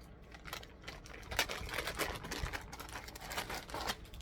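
Irregular light rustling and tapping of a wig and its packaging being handled and unwrapped.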